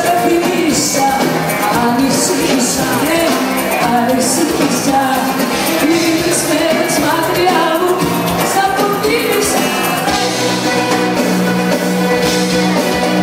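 Live pop music: a woman singing into a microphone over a band with a steady drum beat.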